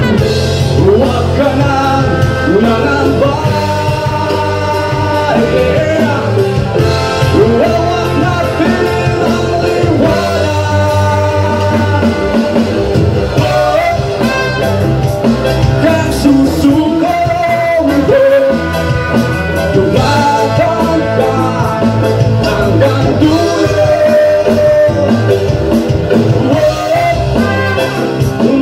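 Live reggae band playing, with a lead singer over a steady bass line and drums, and a trumpet and trombone horn section.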